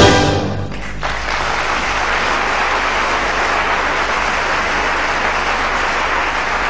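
A loud closing orchestral chord strikes at the very start and rings away, and about a second in a theatre audience breaks into steady applause.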